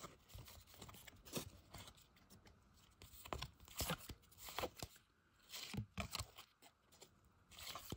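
A stack of 1992-93 Upper Deck hockey cards flipped through by hand, each card slid off the front of the stack and onto the back: faint, irregular scrapes and flicks of card stock.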